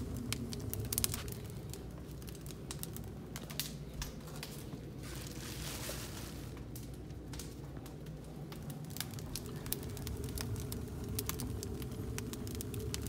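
Wood fire with sneakers burning on the logs, crackling with sharp pops scattered throughout over a steady low rumble. A plastic bag rustles for a couple of seconds around the middle.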